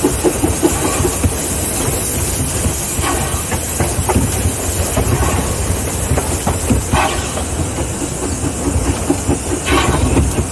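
Calumet and Torch Lake #3, a Mason Bogie 0-6-4T steam locomotive, running along the track, heard from inside its cab: a fast, steady beat of exhaust chuffs, about five a second, over hissing steam and the clickety-clack of wheels on the rails.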